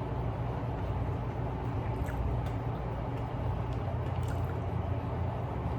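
Steady low background rumble, with a few faint light clicks about two seconds in and again near four seconds.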